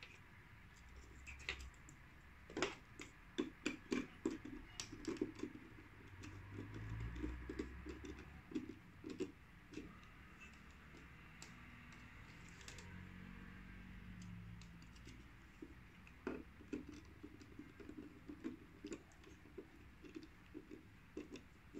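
Small clicks and scratches of hands handling a plastic DIN-rail thermostat and working wires into its screw terminals, in irregular runs of light ticks with a soft rubbing in the middle.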